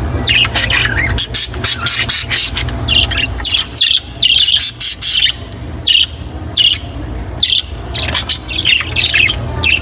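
A group of budgerigars chattering and squawking, many short, sharp calls coming rapidly and overlapping, over a steady low hum.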